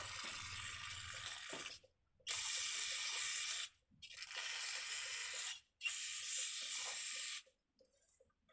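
Aerosol spray cleaner hissing out of the can onto a dirty, gummed-up chainsaw in four long bursts, each about a second and a half, with short pauses between; the last one stops about a second before the end.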